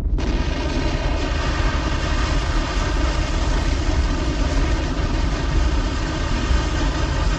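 Oil well gusher blowing out of a derrick: a steady rushing spray of oil and gas with a deep rumble underneath, starting abruptly.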